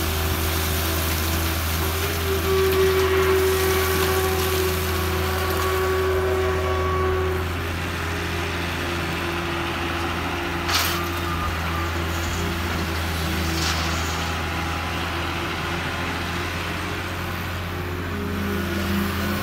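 Hydraulic excavator's diesel engine running steadily under load while it digs and swings coal. Two short, sharp knocks come about eleven and fourteen seconds in.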